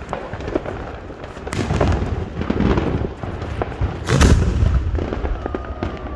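Fireworks going off: a run of bangs and crackling pops, with the loudest, deep boom about four seconds in.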